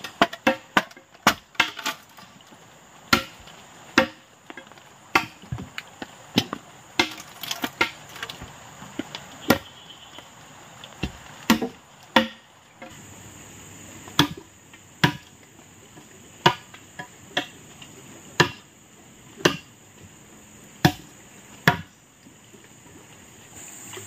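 Sharp chopping strikes of a blade splitting an areca palm trunk, irregular, about one or two a second. Under them, a steady high drone of insects gets a little louder about halfway through.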